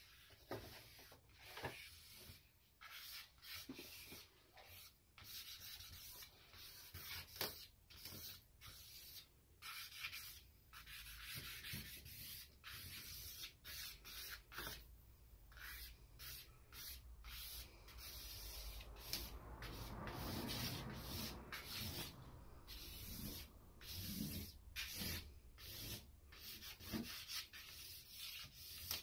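Willow charcoal scratching across a large sheet of cartridge paper in many quick, separate strokes, with a longer stretch of continuous rubbing about two-thirds of the way through.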